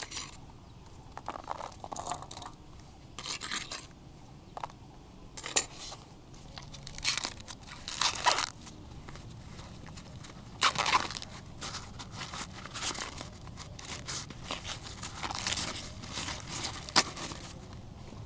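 Irregular crunching and tearing sounds in short bursts at uneven intervals, from food being handled during cooking.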